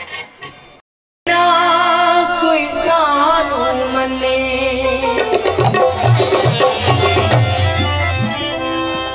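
Live South Asian folk music, cutting in abruptly after a brief dropout about a second in. A singer holds long notes with wavering, ornamented turns, and tabla strokes come in strongly in the second half.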